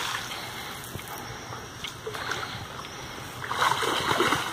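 Hooked fish thrashing at the water's surface, splashing loudly at the start and fading, then splashing again about three and a half seconds in.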